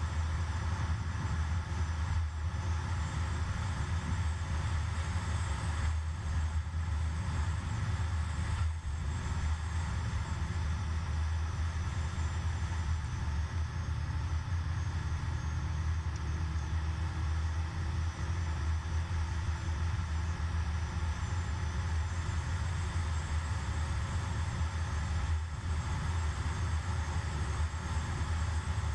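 Car driving at steady speed, heard from inside the cabin: a continuous low drone of engine and road noise with tyre hiss over it.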